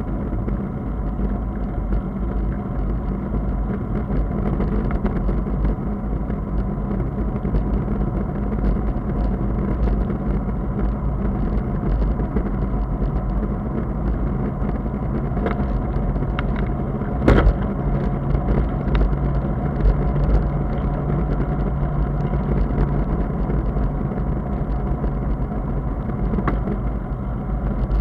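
Bicycle riding along a wet asphalt road: a steady rumble of wind on the microphone and tyre noise. A single sharp knock about two-thirds of the way through, with a few fainter clicks around it.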